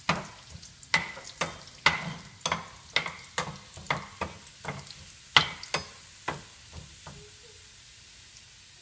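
Pieces of jackfruit rind deep-frying in hot oil with a low sizzle, while a stirring spoon knocks against the pan about twice a second. The knocks stop about six seconds in, leaving only the sizzle.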